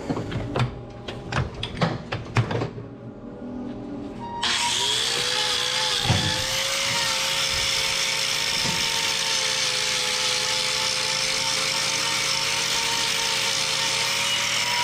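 A few knocks and clatters, then about four seconds in a hoof trimmer's grinder with a carbide-bladed wheel starts up and runs steadily, with a steady whine over the grinding noise.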